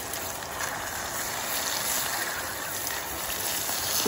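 Starch-coated Japanese freshwater crabs (sawagani) deep-frying in hot oil in a small pan: a steady sizzling hiss with scattered small crackles.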